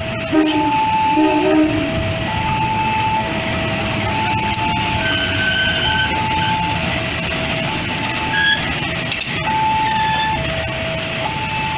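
A train running past with a steady rumble, while a warning signal alternates between a high and a low tone about once a second. Two short, low, horn-like tones sound in the first two seconds.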